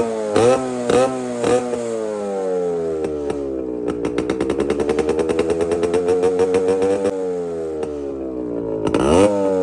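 Yamaha RX100's two-stroke single-cylinder engine revved through its exhaust with the muffler baffle removed. It starts with several quick throttle blips and the revs falling away, then a slow climb held for a few seconds that drops about seven seconds in, and one more sharp blip near the end.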